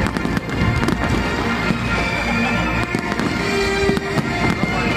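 Fireworks bursting, many sharp bangs in quick succession, with music playing alongside.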